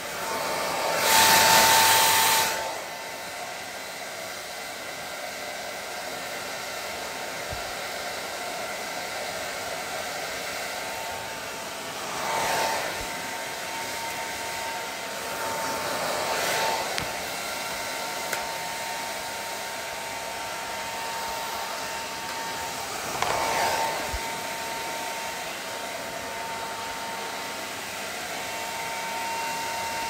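Handheld hair dryer blowing steadily while hair is dried, with a constant whine under the rush of air. The sound swells louder for a moment several times, most strongly about a second in.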